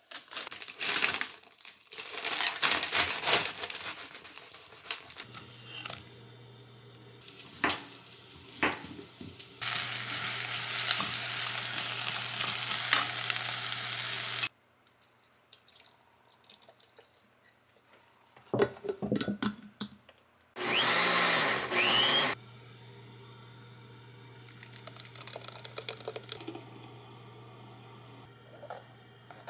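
A sequence of kitchen sounds. First a paper bag and a cardboard box rustle as they are handled, then sliced onions and zucchini sizzle as they fry in a pot for about five seconds. Later a blender runs loudly for about two seconds, and near the end a thick green purée is poured into a cast-iron pot.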